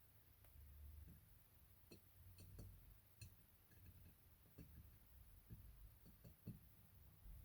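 Near silence with about a dozen faint, irregularly spaced light clicks and taps from polymer clay being handled and shaped by hand on a work surface.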